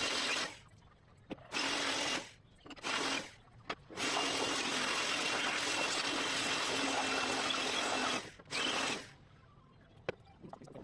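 High-pressure cleaning gun hissing in trigger bursts: several short blasts, then one long blast of about four seconds and a last short one, each starting and stopping sharply.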